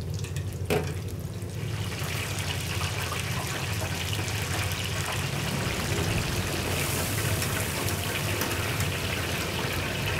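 King shrimp deep-frying in hot oil: a dense, steady crackling sizzle that swells up about two seconds in, after a single knock near the start, over a low steady hum.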